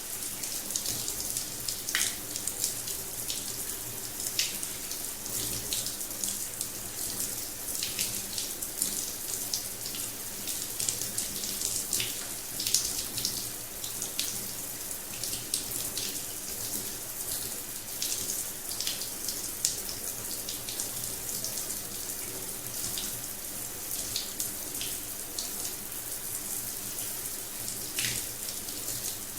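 Water pouring from a rain shower head, a steady hiss of spray with frequent sharp splashes and spatters throughout.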